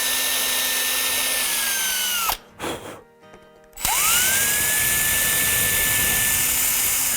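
Battery-powered drill/driver running in two bursts, most likely driving screws: the first run slows and stops about two seconds in, and the second spins up a moment later, runs steadily and cuts off suddenly near the end.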